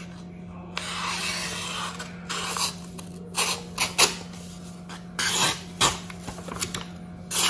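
A knife blade making a series of irregular rasping, scraping strokes: one longer stroke about a second in, then several short ones.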